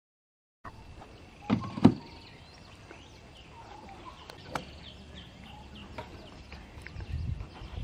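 Quiet outdoor background with faint bird chirps, broken by two low thumps close together a second or two in and a single sharp click a little later.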